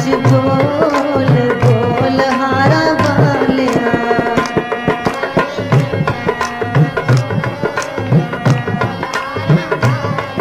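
Devotional bhajan music: tabla playing a steady rhythm under a sustained melodic accompaniment whose pitch moves in the first few seconds and then holds level.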